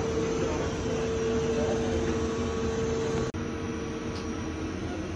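Steady machine hum of lab equipment or ventilation, with a steady mid-pitched tone running through it. The sound drops out for an instant a little over three seconds in and carries on slightly quieter.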